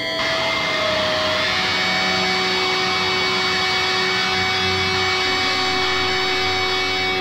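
Electronic drone from the film's score: many sustained tones held over a steady hiss like machine noise, with a low hum coming in about two seconds in.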